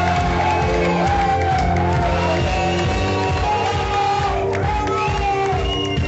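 Background music: a song with a gliding sung melody over steady held bass notes, with crowd voices and some cheering underneath.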